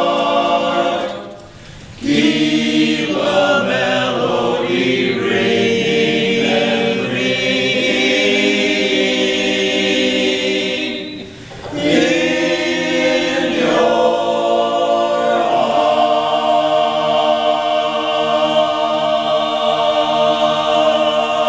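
Small men's choir singing a cappella, with held chords and two short breaks between phrases, one just after the start and one about halfway.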